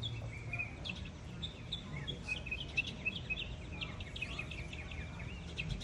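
Many short bird chirps and whistles, some sliding in pitch, calling over one another over a steady low background rumble.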